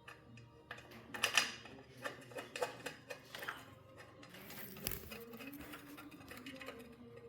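Irregular clinks and clatter of small metal parts and hand tools being handled, loudest about a second in, with a sharp knock near five seconds.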